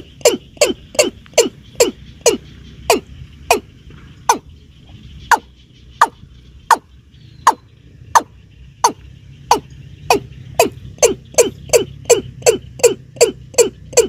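Watercock (keb-keb) calling: a long series of short, sharp notes, each dropping quickly in pitch. They come about three a second at first, slow to about one a second in the middle, then speed up again near the end.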